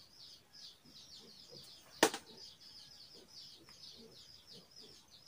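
Birds chirping in a fast, steady run of high chirps. One sharp crack about two seconds in: a peanut shell being split open by hand.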